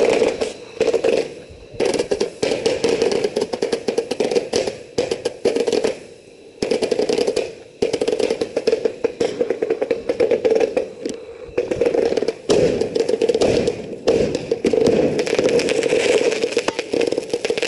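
Consumer ground firework cake firing: rapid popping and crackling shots in volleys over a steady rushing noise, with short pauses between the volleys a few times.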